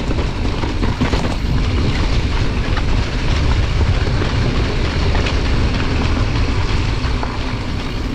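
Wind buffeting an action camera's microphone while a mountain bike rolls over a leaf-covered, muddy trail, with a steady low rumble and scattered small rattles and clicks from the bike and tyres.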